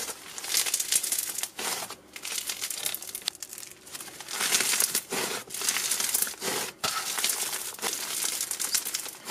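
Snow Fizz slime being stretched, folded and squeezed by hand, making crunchy crackling in irregular bursts as it is worked.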